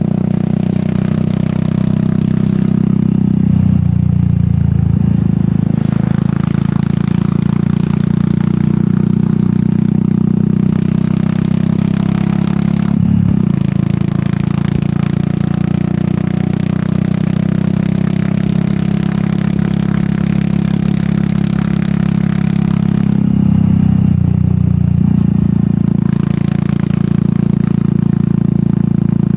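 Royal Enfield Meteor 350's single-cylinder engine running under way through an aftermarket sport exhaust, heard from the rider's position. The note is steady, with brief changes in engine pitch about 4 s in, about 13 s in and about 24 s in.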